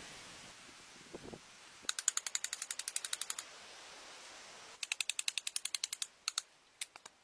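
Rapid mechanical clicking in two runs of about ten clicks a second, each lasting about a second and a half, followed by a few single clicks near the end.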